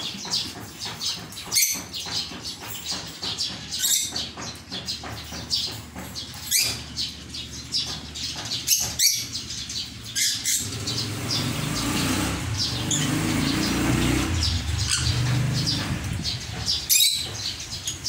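Sun conures giving repeated short, sharp, high-pitched chirps and squawks, some of them loud. From about ten seconds in, a low rushing noise swells for several seconds under the calls, then fades.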